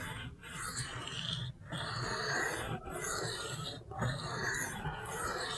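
Spyderco Shaman's Cruwear steel blade scraping back and forth across a wet sharpening stone in freehand sharpening. Long rasping strokes come about one a second, each broken off by a short pause.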